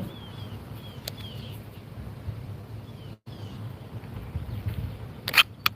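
Faint bird chirps over a low outdoor rumble, then near the end the first quick scraping strokes of a fixed-blade knife's spine drawn down a ferro rod.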